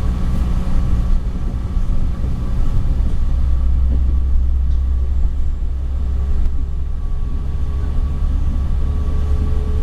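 Passenger train running, heard from on board: a steady low rumble with a faint whine that rises slowly in pitch about halfway through.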